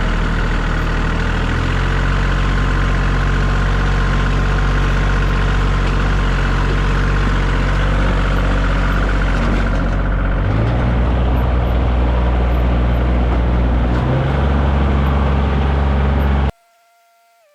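Tractor engine running loud and steady while the tractor is driven, its note shifting a few times. It cuts off suddenly near the end, giving way to quiet music.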